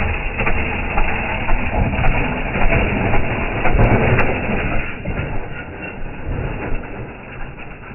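Mini bike's small engine running, rough and loud at first and growing quieter about five seconds in.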